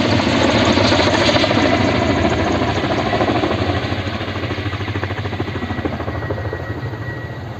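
An engine running with a fast, rough, even pulse, slowly getting quieter.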